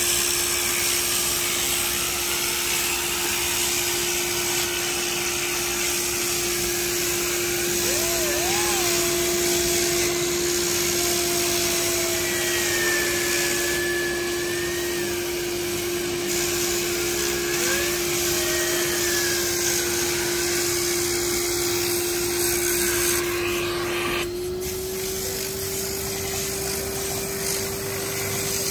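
Vacuum motor of an upholstery extractor running with a steady hum, while a drill-driven brush scrubs foamed fabric seat upholstery. About 24 seconds in, the noise drops a little and the hum steps slightly higher as the extractor nozzle is drawn over the wet fabric.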